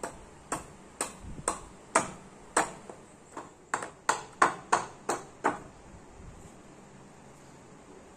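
Machete blade chopping into a block of spalted sengon wood on a wooden plank: about fifteen sharp chops over five and a half seconds, then they stop.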